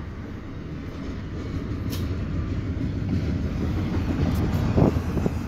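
Double-stack intermodal freight train rolling past, a steady low rumble of wheels on rail that slowly grows louder, heard muffled from inside a car. A short click comes about two seconds in.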